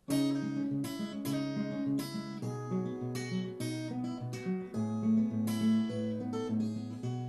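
Acoustic guitar playing a song's intro, strummed and picked chords ringing out one after another.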